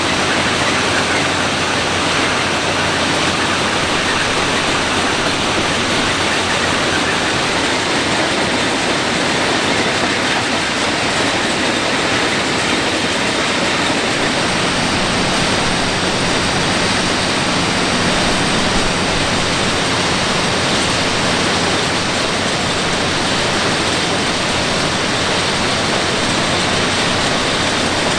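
Plasser & Theurer RMW 1500 ballast cleaning machine at work: a loud, steady din of its machinery with the rush of ballast stones being moved. A low steady hum joins about halfway through.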